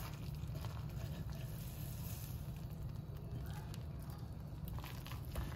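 A serving spoon scooping chicken pot pie with biscuit topping out of a slow-cooker crock into a bowl: faint soft scraping and wet squishing with small clicks, over a steady low hum.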